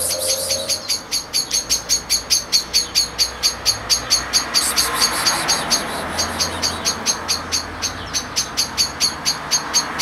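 Rapid, evenly spaced high chirps, about five a second, repeating steadily. A low hum, like distant traffic, runs underneath.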